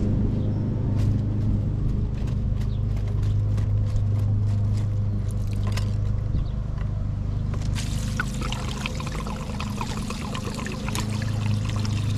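Light clicks as the hose clamp on the pool pump's plastic fitting is worked loose, then from about eight seconds in, water gushing out of the pump's open port and splashing onto gravel. A lawn mower engine hums steadily underneath.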